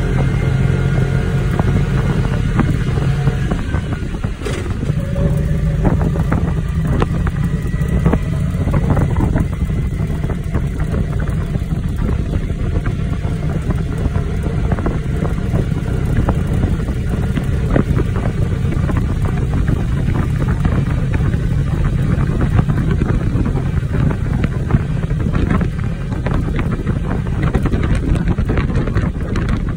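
A vehicle driving along a road, its engine and tyres making a steady low rumble, with wind rushing and crackling over the microphone.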